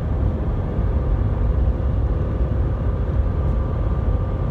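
Car driving, heard from inside the cabin: steady road and engine rumble, with a faint steady hum above it.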